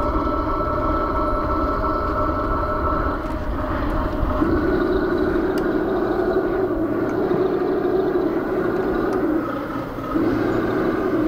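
Engines of a radio-controlled B-2 Spirit flying-wing model running in flight: a steady drone whose pitch shifts about four seconds in, dips briefly near the end, then comes back.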